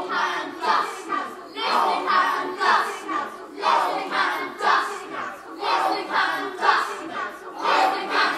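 A large group of young voices chanting together in unison to a steady rhythm, about two beats a second.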